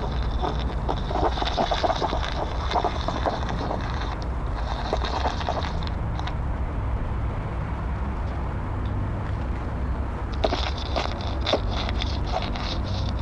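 A microphone being rubbed and scraped against a sculpture's surface: scratchy rubbing and clicking over a steady low rumble. The harsher scraping eases off about halfway through and comes back strongly near the end.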